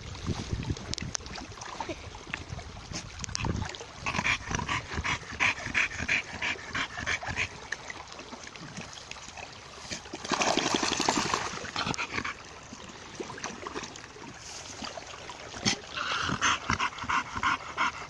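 American Bully dog panting in rhythmic bouts while wading in shallow water, with a couple of seconds of splashing water around ten seconds in.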